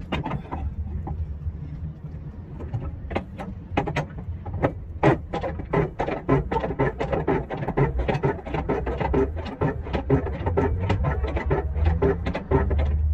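Semi-trailer landing gear being cranked by hand: a run of rapid mechanical clicks and clanks, about two to three a second and faster after the first few seconds, as the crank handle turns the leg's gearing, over a steady low hum. The legs are being lowered before the tractor is uncoupled from the trailer.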